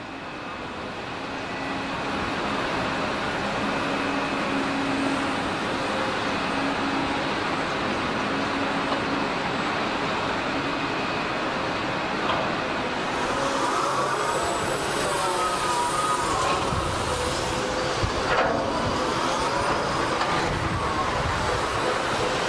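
Sennebogen 870 material handler working: a steady machine running sound with a few sharp knocks as its grab drops bulk material into a truck bed.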